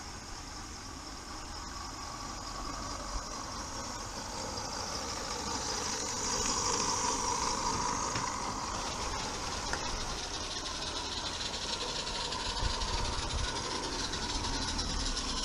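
16mm-scale live-steam garden railway locomotive running past with a train of loaded wagons: steam hissing and the wagons' wheels running on the track, getting louder about six seconds in as the train comes close.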